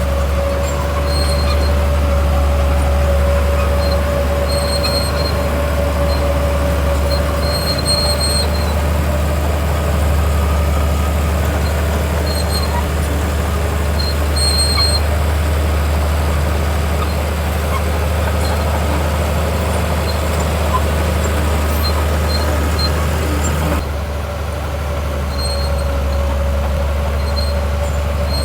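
Bulldozer's diesel engine running steadily under load, a deep continuous drone with a steady hum over it, and short high squeaks now and then.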